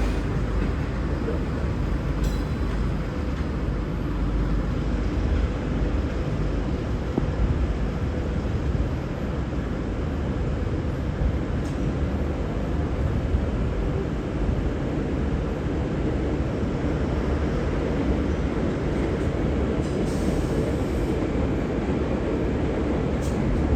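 V/Line Sprinter diesel railcars running, a steady low engine rumble with a faint hum, with a few faint clicks.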